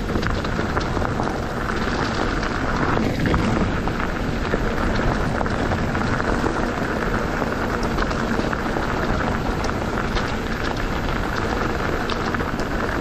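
Steady rushing noise of a mountain bike being ridden along a dirt singletrack trail: wind on the microphone and tyres on the trail, with scattered small clicks and rattles.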